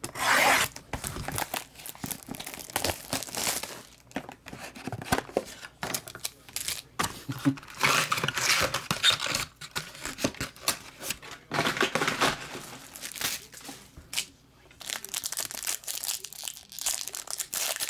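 Plastic shrink wrap and a foil card pack crinkling and tearing as they are slit and pulled open by hand, in irregular crackling bursts with short pauses.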